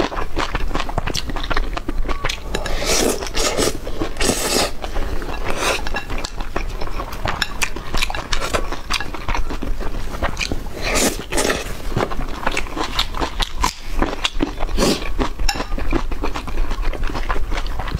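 Close-miked eating of braised pork with rice: continuous chewing and biting with many small mouth and utensil clicks, and a few louder noisy bursts scattered through.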